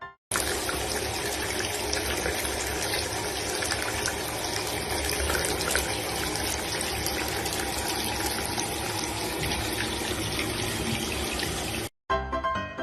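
Steady rushing of running water, starting abruptly and cutting off abruptly near the end.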